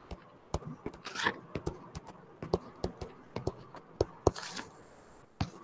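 Stylus tapping and scratching on a touchscreen during handwriting: a string of irregular light taps, with two short scratchy strokes.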